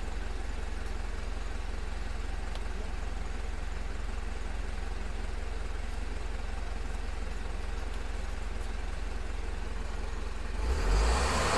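Mitsubishi Fuso 4M50 four-cylinder turbo-diesel idling steadily, then revving up near the end as the accelerator is pressed.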